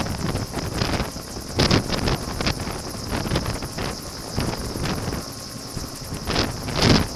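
Two-bladed utility helicopter hovering overhead, its rotor running steadily, with rotor downwash buffeting the microphone in irregular gusts. The buffets are loudest about a second and a half in and near the end.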